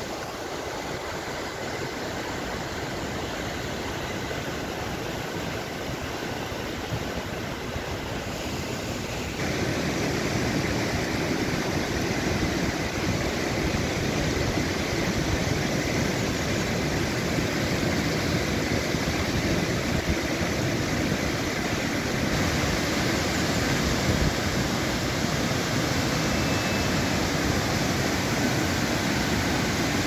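Fast mountain stream rushing over a boulder-strewn bed: a steady wash of water noise that becomes louder and fuller about ten seconds in.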